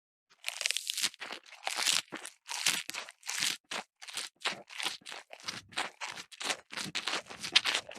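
Quick rasping strokes of a hand tool working small pieces of wood, about two to three strokes a second.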